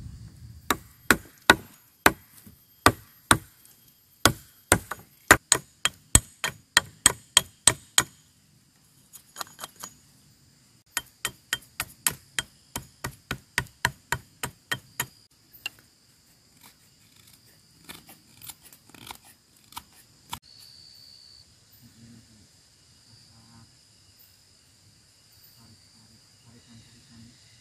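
Small axe chopping the end of a wooden stick into a point, sharp wood-on-blade chops about two or three a second in runs with short pauses. The chopping stops about twenty seconds in, leaving a faint steady background.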